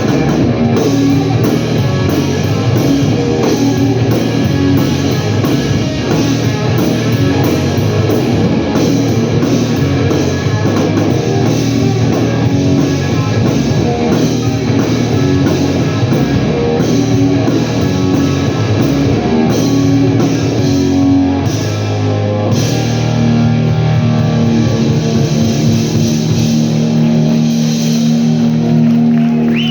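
Live blues-rock instrumental passage: electric guitar playing over a drum kit. About three-quarters of the way through, the busy playing gives way to a long sustained chord held over the drums.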